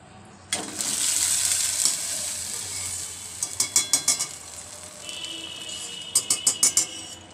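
Hot oil sizzling as urad dal (kolai dal) bora fritters are dropped in and fry, starting suddenly about half a second in. Two quick runs of sharp clicks come partway through and again near the end.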